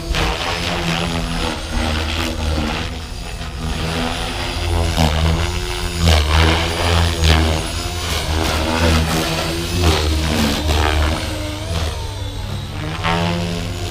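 Blade Fusion 550 electric RC helicopter, with a 6S-powered 1350kv brushless motor, flown hard in aerobatics: the rotor whine and blade chop rise and fall in pitch with each swoop and pass.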